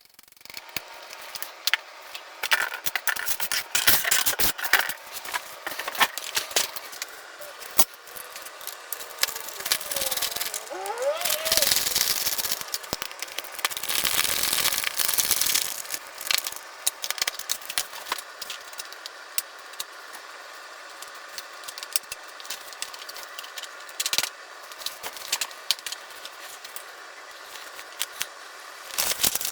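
Handling noise from assembling a foam RC warbird: irregular clicks, crackles and rubbing of foam and plastic parts being fitted together, with a brief squeak partway through.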